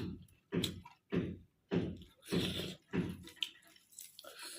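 A person chewing soft, wet food with the mouth close to the microphone, making wet smacking sounds at an even pace of a little under two a second.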